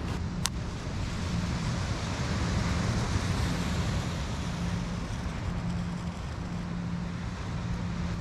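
Wind buffeting the microphone over a steady rush of sea surf, with a low rumble throughout and a brief sharp click about half a second in.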